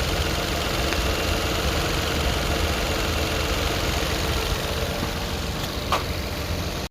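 Car engine idling steadily under an open hood, with a faint click about six seconds in.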